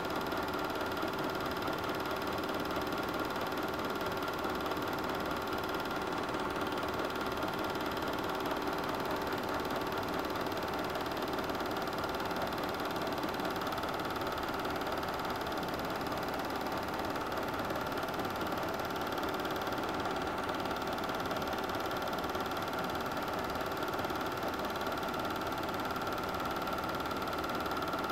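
Super 8 film projector running steadily: a constant mechanical whir with several held tones.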